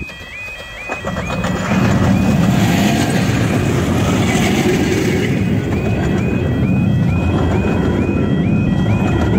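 Miniature steam train, RH&DR Nos. 11 "Black Prince" and 6 "Samson" double-heading a rake of coaches, rumbling over the rails through the level crossing, louder from about a second in. Over it the crossing's warbling alarm repeats about twice a second, clearest in the second half.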